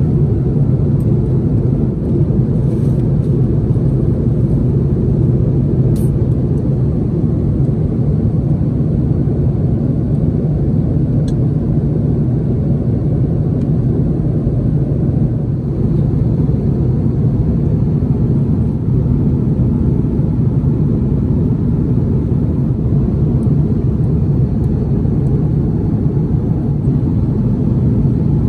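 Airbus A330-300 passenger cabin in cruise: a steady, low rumble of airflow and engines.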